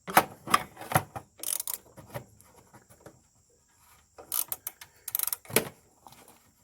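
Oil filter wrench clicking and clattering against the oil filter and the engine parts around it as it is fitted on, in a string of separate sharp metallic knocks.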